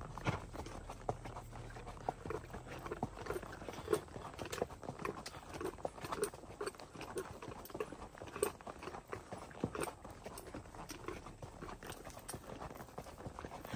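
Horse hooves clip-clopping on a dirt track, heard from the saddle of the ridden horse: a quick, uneven run of hoofbeats.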